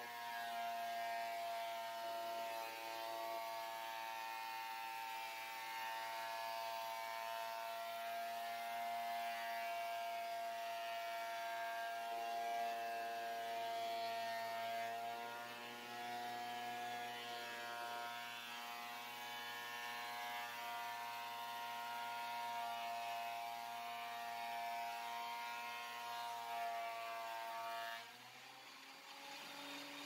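WEN benchtop thickness planer running under load, its motor whirring steadily as the cutterhead planes a board fed through it. About two seconds before the end the board clears the cutter and the motor speeds up and runs quieter, unloaded.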